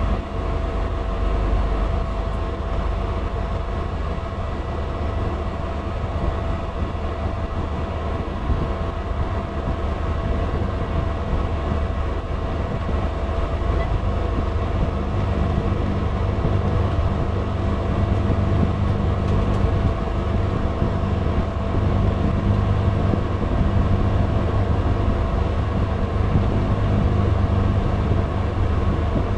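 Small plane's engine droning steadily, heard from inside the cabin as the plane taxis. Steady whining tones ride over a deep rumble, which grows a little louder about halfway through.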